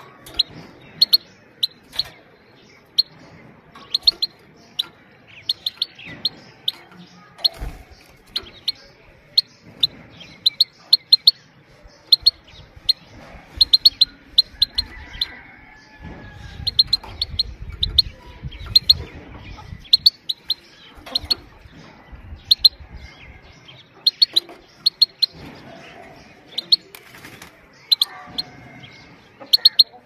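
Himalayan (grey-crowned) goldfinch giving its short, sharp "pit-pit" calls in quick clusters of two to five, repeated all through. These are the female's calls, used to stimulate male goldfinches.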